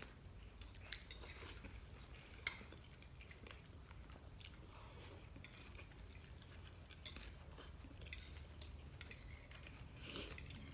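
Quiet eating sounds: noodles being chewed, with scattered light clicks and taps of a fork and chopsticks against bowls. The sharpest click comes about two and a half seconds in, over a steady low hum.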